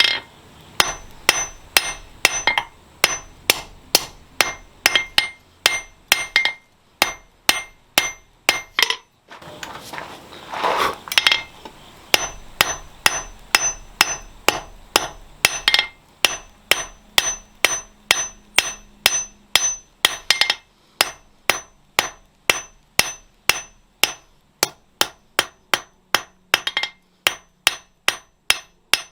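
Hand hammer striking steel on an anvil in a steady rhythm of about two blows a second, each blow ringing briefly, with a short break about nine seconds in.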